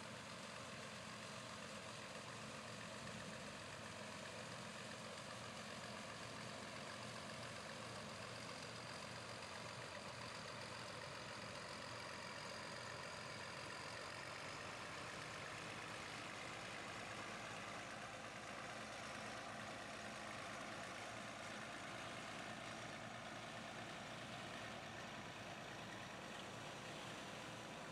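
A John Deere combine and the tractor pulling a grain cart beside it running steadily, their diesel engines and harvesting machinery giving an even, unbroken hum.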